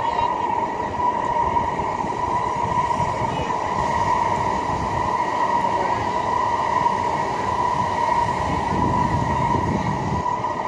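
Electric train running along the tracks below, a steady rumble of wheels on rail with a constant whine over it.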